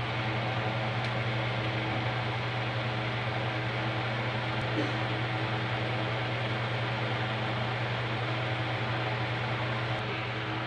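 Steady machine hum with a hiss, even throughout, with a few faint ticks.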